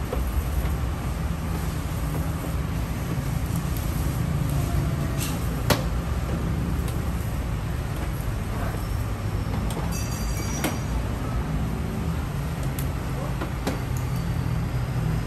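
Steady low mechanical rumble, like a vehicle engine running, with a few sharp clicks and knocks from hand work at a car's wheel arch. The loudest click comes about six seconds in.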